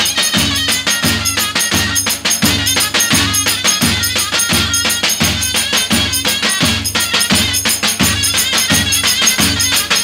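Zurna playing a wavering folk dance melody over davul bass drums. The drums give a heavy mallet beat about twice a second, with quick light stick strokes filling in between.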